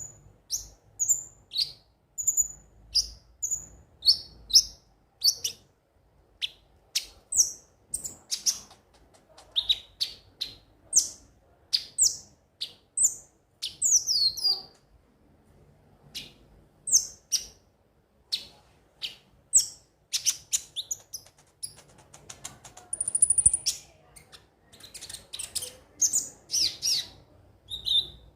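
Kolibri ninja (konin) sunbird chirping and singing: quick runs of short, sharp, high-pitched notes, many sweeping downward, broken by brief pauses.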